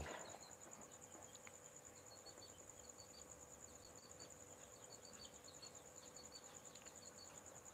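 Faint, steady, high insect chirring, with short, faint, high chirps in small groups every second or so.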